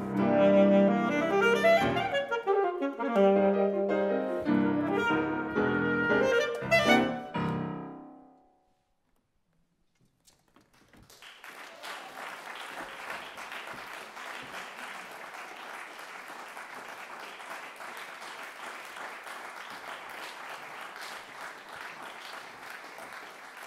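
Alto saxophone and grand piano playing the closing bars of a piece, the last notes dying away about eight seconds in. After a couple of seconds of silence, audience applause starts and goes on steadily.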